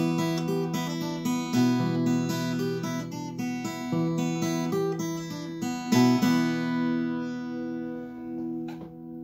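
Steel-string acoustic guitar playing the closing bars of a song in E minor, chords picked note by note, then a final chord about six seconds in that rings out and fades. A single soft knock just before the end.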